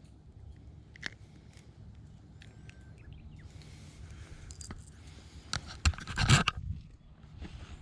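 Scraping and rustling over a low steady rumble, with a louder cluster of sharp clicks and scrapes about five and a half seconds in that lasts around a second.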